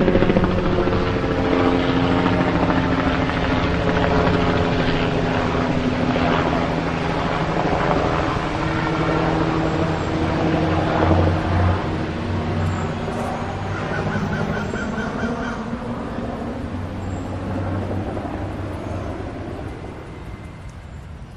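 Helicopter flying: steady rotor chop and engine whine, slowly growing quieter and fading away near the end.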